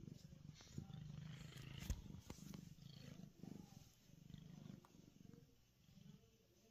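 Domestic cat purring in a low rhythmic hum that swells and eases about once a second with each breath, a contented purr that grows fainter near the end. A light knock sounds about two seconds in.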